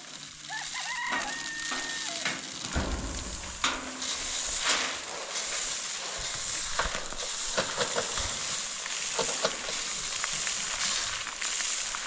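Loose grain pouring off a pickup's tailgate onto a plastic tarp as it is scooped out by hand: a steady sizzling-like hiss with scattered small patters and rustles.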